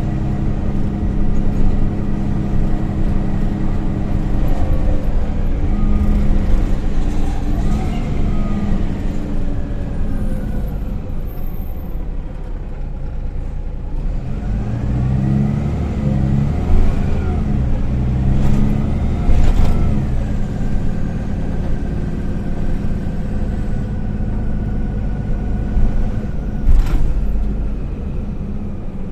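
MAN Lion's City A20 NL low-floor city bus under way, heard from inside the passenger cabin: engine and drivetrain running, the pitch rising and falling a few times as the bus speeds up and slows. A steady whine runs through the latter part, and a few sharp knocks ring out in the second half.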